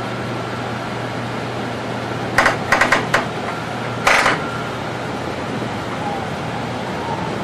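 Steady running noise and hum inside the cab of a 500 series Shinkansen at about 165 km/h. About two and a half seconds in comes a quick run of four sharp clicks, then one more a second later: the master controller being notched off as the train reaches just under its 170 km/h ATC signal speed.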